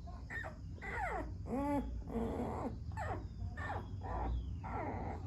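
Newborn animals squeaking and whimpering: many short, high calls that fall in pitch, several overlapping, over a low steady hum.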